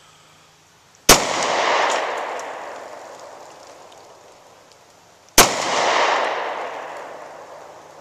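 Two shots from a Taurus .40 caliber pistol, about four seconds apart, each followed by a long echo that dies away over two or three seconds.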